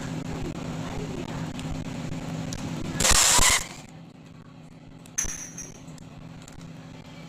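Bag vacuum-sealing machine at work: its pump motor hums steadily, then a loud hiss of air lasts under a second about three seconds in, after which the hum drops lower. A sharp clack about two seconds later.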